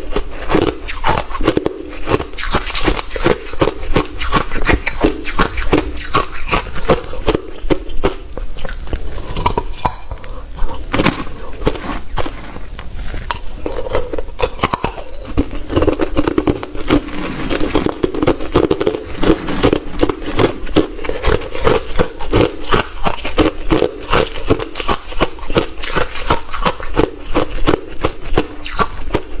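Close-up crunching of hard, refrozen crushed ice being bitten and chewed: a dense, continuous run of sharp crunches and cracks.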